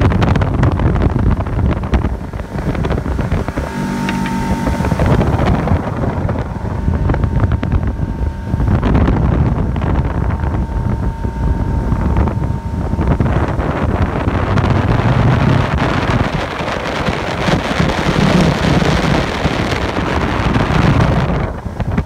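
Motorboat underway: wind buffeting the microphone over the steady sound of the boat's motor running.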